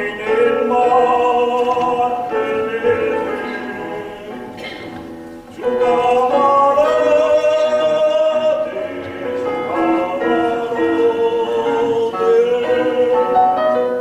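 Male choir singing a zarzuela or opera chorus with piano accompaniment, sustained sung lines that ease off for a moment and come back in louder about six seconds in.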